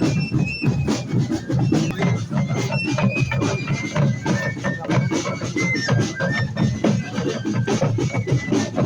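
Traditional music of a high-pitched flute playing a stepping melody over steady drumming.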